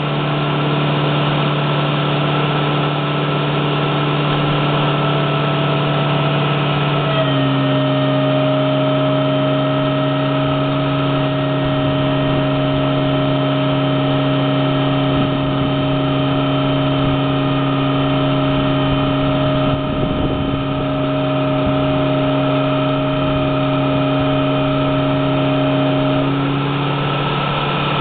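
A machine running steadily, a droning hum made of several steady tones. The pitch drops slightly about seven seconds in, and some of the higher tones stop near the end while the hum goes on.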